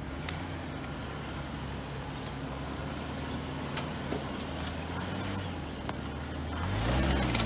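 Jeep Wrangler engine running at low revs under load as it crawls up a steep dirt climb, with a few faint clicks. Near the end the engine gets louder and its pitch rises and wavers as more throttle is given.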